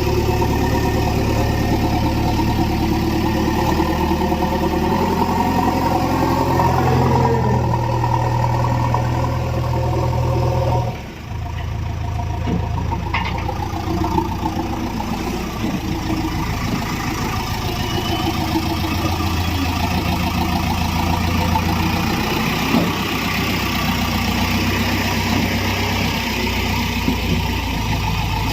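Heavy diesel engine running, its speed stepping up and down several times, with a brief drop in loudness about eleven seconds in.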